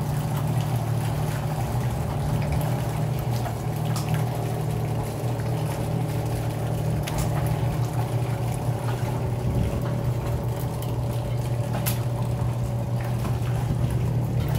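Yamaha WaveRunner's engine idling steadily as the personal watercraft backs slowly away from the dock, with water splashing and churning around the hull.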